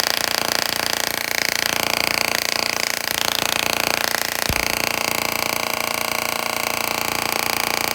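Miniature Class-E dual-resonant solid-state Tesla coil running at full power, its arcs making a loud, steady buzz at the interrupter rate, with a high tone that shifts a few times. There is a brief low thump a little past halfway. The coil is drawing enough current to push the supply into current limiting.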